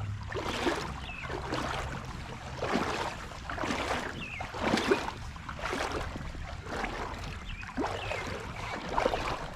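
Boots wading through creek water, sloshing and splashing unevenly with each step.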